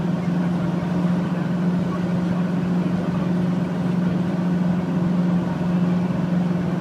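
Steady drone of a vehicle driving at constant motorway speed, engine and tyre noise with an unchanging low hum.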